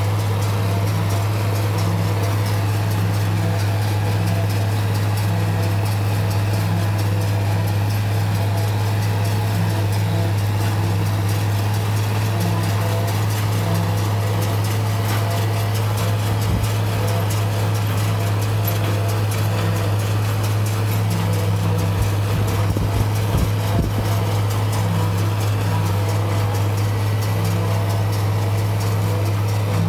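International 1256 tractor's diesel engine running steadily under load, driving a New Holland 790 forage chopper as it picks up and chops a windrow of hay. It is a constant low drone with a faint pulsing beat, and there are a few low bumps a little past the middle.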